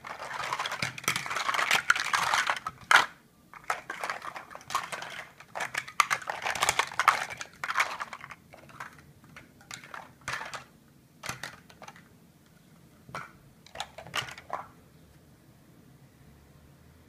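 Large hollow plastic Mega Bloks First Builders blocks clattering and knocking together as hands rummage through a pile and push them aside: dense clatter for the first three seconds and again from about four to eight seconds in, then scattered single knocks that stop about fifteen seconds in.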